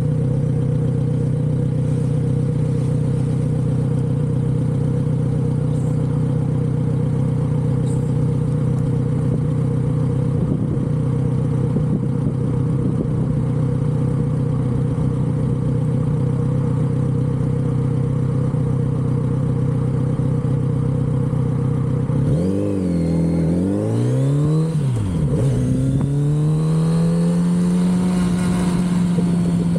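Kawasaki Z900RS's inline-four engine running through its stock exhaust at a steady note while riding. About three-quarters of the way in, the engine pitch dips and climbs a few times, then holds steady at a higher pitch.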